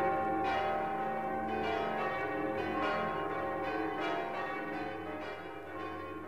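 Bells ringing, with a fresh strike about once a second over a sustained ring, slowly fading.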